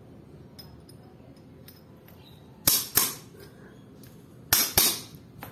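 Four sharp metal-on-metal strikes in two quick pairs, with faint clinks before them: a pair of pliers used as a hammer, pounding a bent tooth on a steel bicycle freewheel cog to straighten it.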